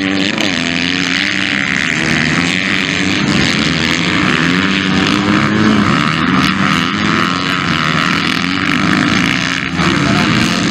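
Several motocross dirt bikes racing on a dirt track, their engines revving up and down through the gears and overlapping as they pass.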